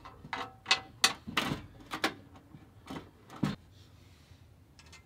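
Metalcloak aluminum tube fender being handled and set against the Jeep's body: a string of light metallic clunks and knocks, about eight in the first three and a half seconds, as it is positioned and its lower bolt is started.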